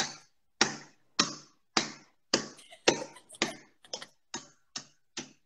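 A stainless steel pan striking down again and again to smash almonds and chocolate pieces on a kitchen counter: about a dozen sharp knocks, roughly two a second, quickening slightly.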